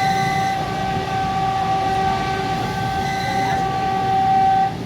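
A train horn sounds one long steady note for nearly five seconds and cuts off abruptly near the end, over the rumble of the moving train.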